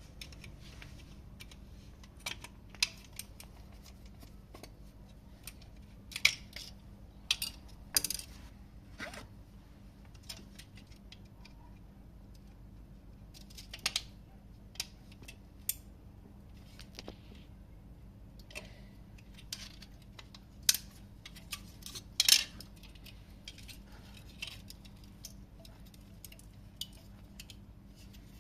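Scattered sharp clicks and light metallic clinks, singly or a few at a time with pauses between: small parts and tools being handled during a wall-socket repair.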